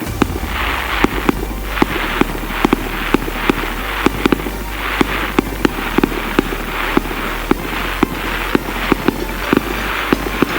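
Fireworks going off over music with a steady beat; a deep bass line comes in right at the start.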